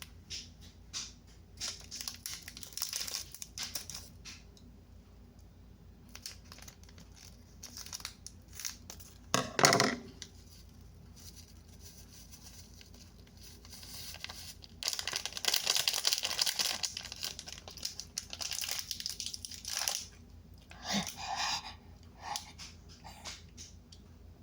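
Plastic instant-noodle seasoning packet being torn open and crinkled, with scattered rustles, one sharp knock about ten seconds in, and a longer stretch of tearing and crinkling in the second half.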